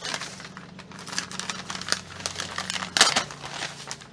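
Newspaper sheets crinkling and rustling as they are unfolded by hand, with a sharp loud crackle about three seconds in.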